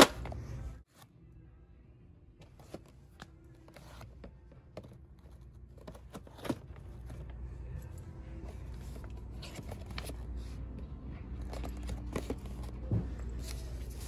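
Shop aisle ambience: a low steady hum with faint music, broken by a sharp knock at the very start and scattered small clicks and taps of packaging being handled. Near the end comes a plastic packaging rustle as a hand handles wrapped tablecloths.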